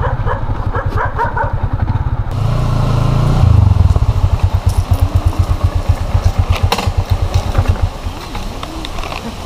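Motorcycle engine running with a rapid low pulsing. It gets louder about three seconds in and eases off near the end.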